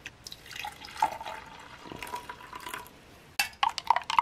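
Hot water is poured into a cup to make coffee, with a faint steady ringing tone as it fills. Near the end a spoon clinks quickly against the cup several times as the coffee is stirred.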